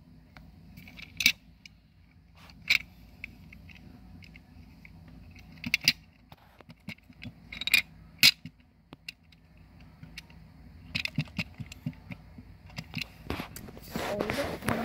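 Small plastic toys clicking and knocking together as they are handled: a few scattered sharp clacks, then a quick run of clicks and a soft rustle against a fleece blanket near the end.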